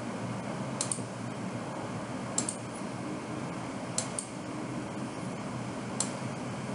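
Computer mouse button clicking five times, each a sharp short tick, most of them a quick press-and-release pair, over a steady low room hiss.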